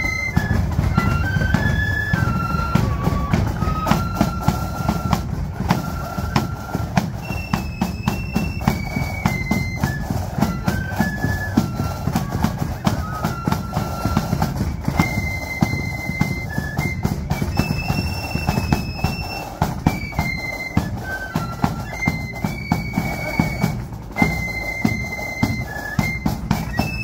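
Marching flute band playing: a high, bright flute melody over rapid snare drum strokes and a heavy bass drum beat.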